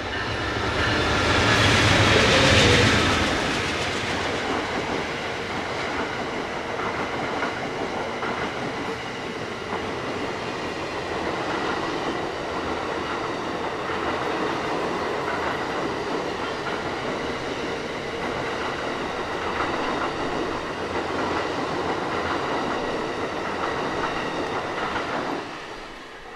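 Amtrak passenger train passing at speed behind two GE Genesis diesel locomotives (a P42DC and a P40DC), loudest with a deep engine rumble about two seconds in as the locomotives go by. A long steady rush of coach wheels on the rails follows, then drops away near the end as the last car passes.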